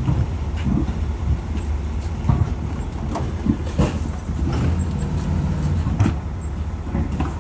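Steady low rumble of a running engine, with scattered knocks and clunks from heavy monster-truck tyres being handled.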